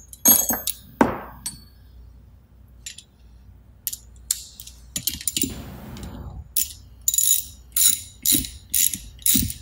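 Steel hand tools clinking against metal, then a ratcheting wrench clicking in short strokes, about two a second, as an air fitting is tightened into a pneumatic cylinder.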